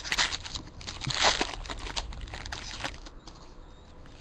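Plastic trading-card pack wrapper crinkling and being torn open, a run of short crackles that is loudest about a second in.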